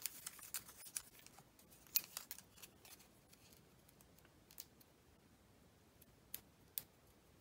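Scissors making small snips in masking paper: faint, sharp clicks, several in the first few seconds, then a few scattered ones.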